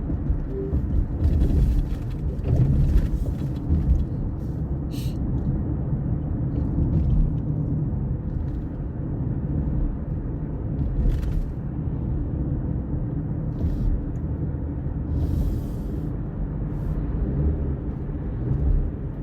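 A steady low rumble with a few short higher hisses and ticks through it.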